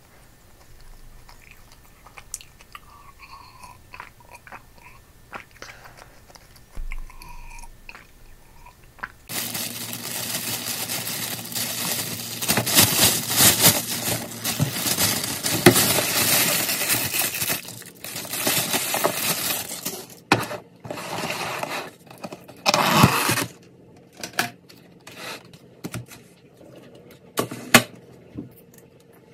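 Faint chewing, then from about nine seconds in, loud crinkling and rustling of a thin plastic bag around a takeout food container being unwrapped. It dies down to scattered clicks and knocks near the end.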